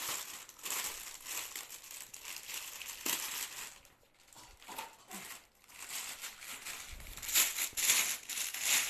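Plastic packaging crinkling and rustling in irregular bursts as it is handled and unwrapped, loudest near the end.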